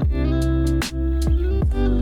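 Background music: a guitar-led track with a heavy bass and a steady beat.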